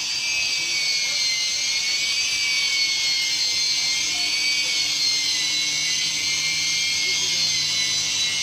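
Electric polishing machine running steadily, a high whine that wavers slowly in pitch as it works.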